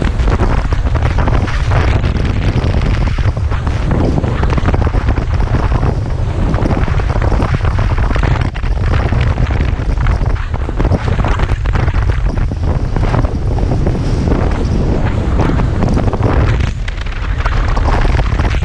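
Strong wind buffeting the microphone with a deep, gusty rumble, over the rush of water along the hull of a Tornado racing catamaran under sail.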